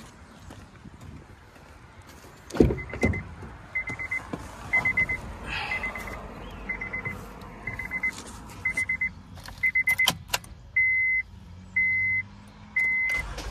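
A heavy thud, then a Honda Pilot's dashboard warning chime beeping at one high pitch about once a second. The beeps turn louder and longer about eleven seconds in.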